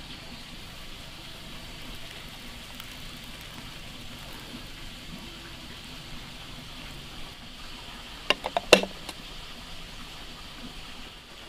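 Water poured over instant noodles in a porcelain bowl, then a ceramic lid set down on the bowl with a quick run of sharp clinks, the loudest sound, about eight seconds in.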